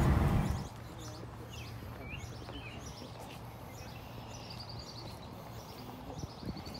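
Several small birds chirping and calling, with a fast high trill near the end. A car's road noise cuts off in the first half-second, and a few soft thumps come near the end.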